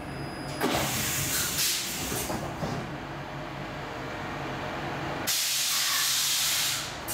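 Stockholm C14 metro car standing at a platform, its equipment humming low and steady, with a sharp hiss of compressed air from its pneumatic system starting about five seconds in and lasting about a second and a half.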